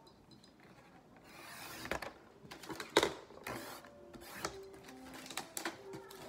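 Sliding rail paper trimmer: the cutter head is drawn along its rail and scrapes through paper sheets, followed by a series of clicks and knocks as the head and sheets are handled. The loudest knock comes about three seconds in.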